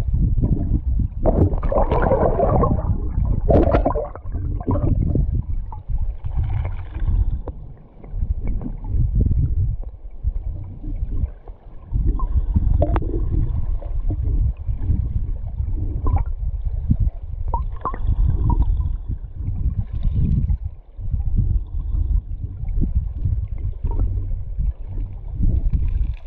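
River current heard underwater: a low, pulsing rumble and gurgling, with scattered sharp clicks, busiest a couple of seconds in.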